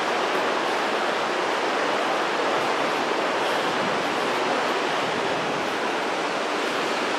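Mountain river rushing steadily, an even unbroken rush of water.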